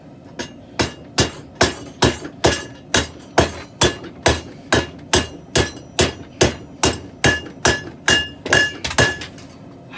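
Hand hammer forging steel on an anvil: an even run of about twenty blows, roughly two and a half a second, each with a short metallic ring, stopping about nine seconds in.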